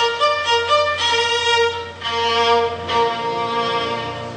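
Violin playing a melody with piano accompaniment: a run of short notes, then a long held note about two seconds in.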